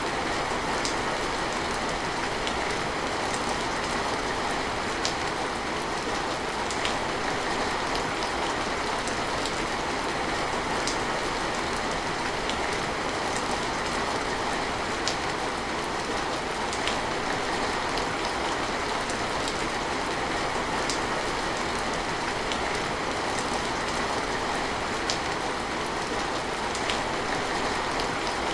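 Steady rain falling: an even hiss, with scattered single drops ticking sharply here and there.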